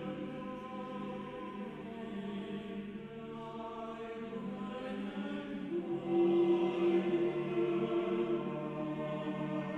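Choir singing long held notes, with a louder held note coming in about six seconds in.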